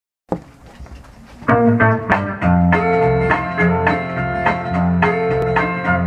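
A 45 rpm vinyl single playing on a turntable: a click, a second or so of faint record surface noise, then a country band's instrumental intro starts about a second and a half in.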